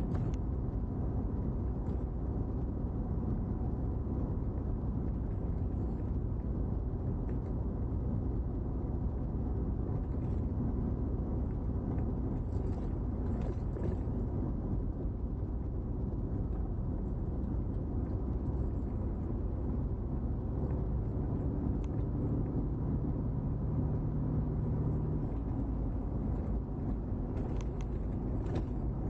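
Car running steadily up a mountain road, heard from its dashcam inside the car: a constant low rumble of engine and tyre noise. A low drone joins for about five seconds past the middle, and a few faint ticks come near the middle and near the end.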